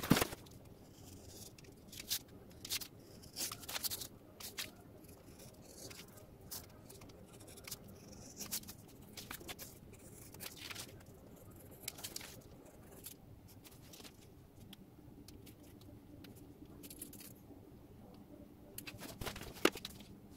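Utility knife blade scratching through printed paper templates on a cutting mat, in short strokes, with paper rustling and handling knocks; the loudest knocks come right at the start and near the end.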